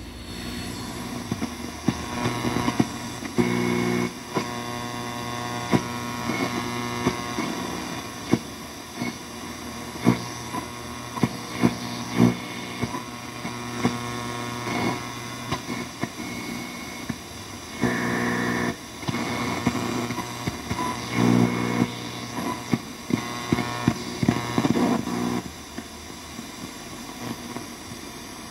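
Sony CFD-V17 boombox radio being tuned across the dial through its own speakers: a steady hum and hiss with frequent crackles, and signals coming in louder for a second or so a few times.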